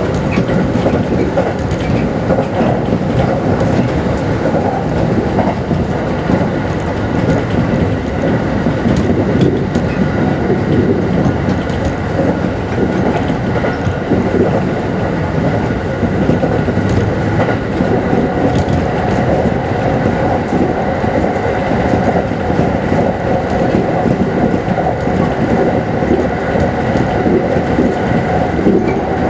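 Kintetsu Series 21 electric train heard from inside the car, running at speed: a steady rumble of wheels on rail, with a few steady high tones above it.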